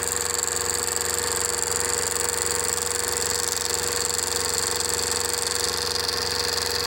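LMS 3900 HiTorque mini mill running steadily, its end mill cutting acrylic under power feed: a constant hum with a high whine over even cutting noise.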